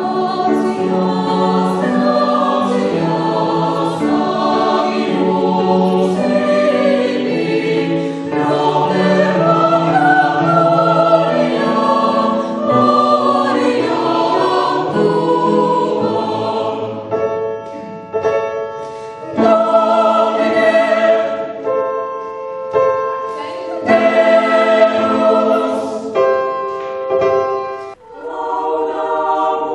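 Mixed-voice university choir singing in harmony, several parts together. About halfway through it moves to long held chords with short breaks between them.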